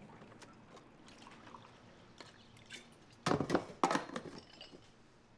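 Liquid poured into a cup in two short gushes a little over three seconds in, among faint clicks of handling.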